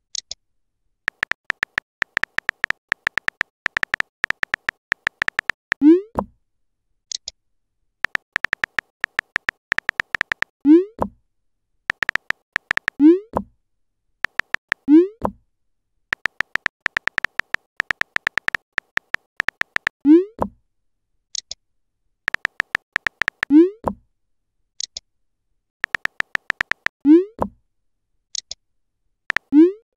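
Simulated phone-keyboard typing clicks come in fast runs of a few seconds each, and most runs end with a short rising 'bloop' as a chat message is sent. Brief high chirps sound a few times in between as replies come in.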